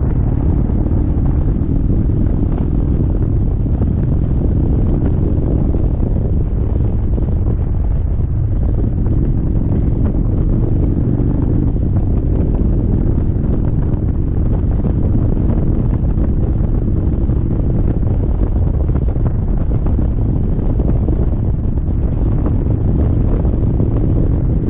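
Wind buffeting the microphone at riding speed, over the steady running of an Indian Chieftain motorcycle's V-twin engine.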